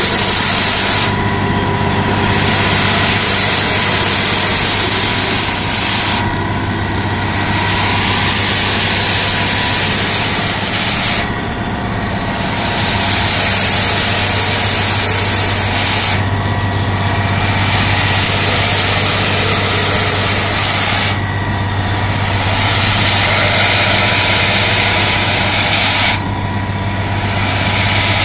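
Crawler-mounted blasthole drill rig's diesel engine running steadily while the rig moves on its tracks, with a loud hiss over it that cuts out briefly about every five seconds.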